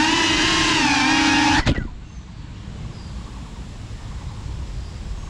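FPV quadcopter's brushless motors and propellers whining close to the onboard camera, the pitch wavering with the throttle. About a second and a half in there is a sharp knock as the drone comes down on the road and the motors cut out, leaving only faint outdoor background noise.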